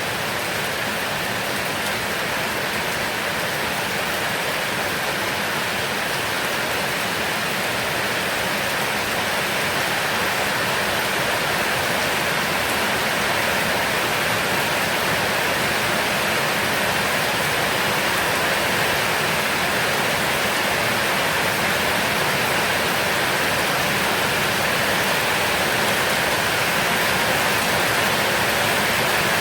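Heavy rain falling steadily in a continuous dense hiss, growing slightly louder through the stretch.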